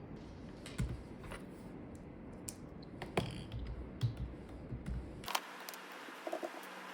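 Scattered light clicks and taps, as of small objects being handled. About five seconds in, the low background rumble drops away abruptly.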